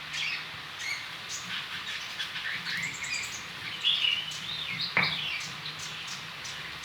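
Small birds chirping in short repeated calls, with light clicks and a sharp knock about five seconds in from a pestle working spices in a stone mortar.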